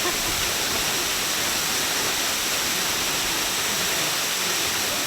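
Minoh Falls, a steady, unbroken hiss of water falling into its plunge pool, with no change in level.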